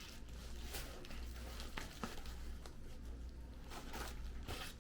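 Faint handling noises: a few light clicks and soft rustles as a cordless cable stapler is lifted from its case and handled, over a low steady hum.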